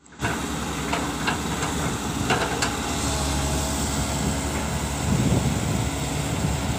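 Excavator diesel engines running steadily during the recovery of a Komatsu excavator bogged down in a peat pit, with a few sharp knocks in the first three seconds and a slight swell about five seconds in.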